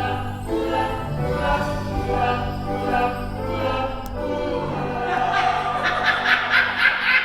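Musical-theatre ensemble singing in harmony over held low instrumental notes. It grows brighter and more rhythmic in the last two seconds.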